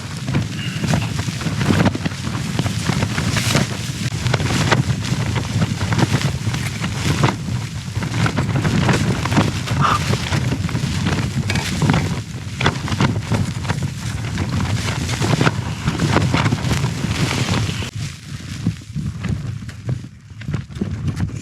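Strong gusting wind buffeting a small backpacking tent: the flysheet flaps and cracks over a constant low rumble of wind. The gusts ease a little near the end.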